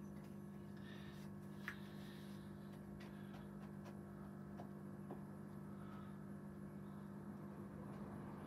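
Steady low electrical mains hum, faint, with a few small clicks; the sharpest comes a little under two seconds in.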